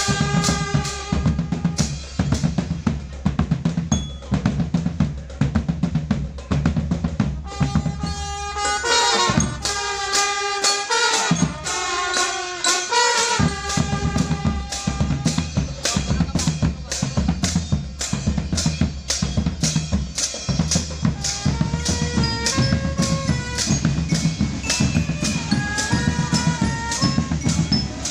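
Marching drum band playing. Bass drums, snare and tenor drums and cymbals keep a steady beat under a tune from the melodic instruments. The bass drums drop out for a few seconds near the middle, then come back in.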